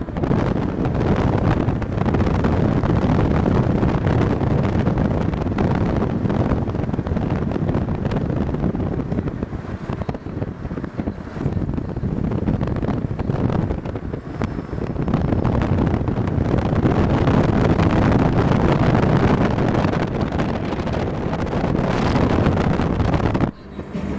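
Road noise and wind rushing over the microphone from a moving vehicle, steady and loud, dropping out briefly near the end.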